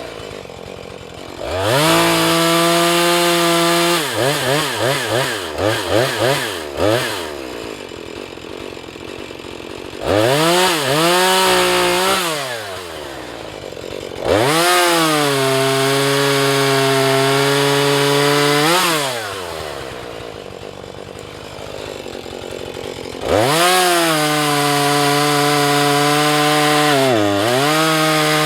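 Husqvarna 435 two-stroke chainsaw cutting wood: several long runs held at full throttle, dropping back to idle between them, with a burst of quick throttle blips early on. Near the end the engine briefly bogs down under load and picks back up.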